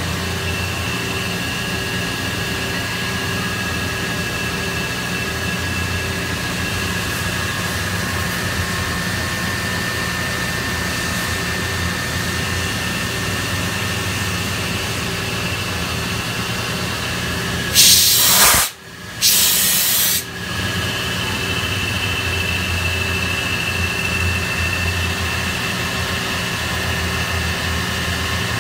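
Okuma Multus mill-turn machine cutting a metal part under flood coolant: steady machining noise with a high steady whine and lower hum. About 18 seconds in, two loud hissing bursts, the second about two seconds long.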